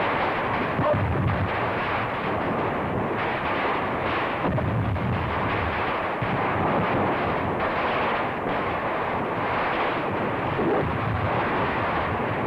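Boxes of firecrackers and fireworks going off in a dense, unbroken barrage of bangs and crackles, with heavier low booms about one, five and eleven seconds in.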